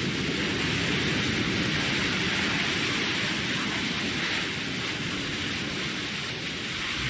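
New Shepard booster's BE-3 rocket engine firing during its landing burn, slowing the booster just above the pad before touchdown. It makes a steady rushing roar that holds evenly throughout.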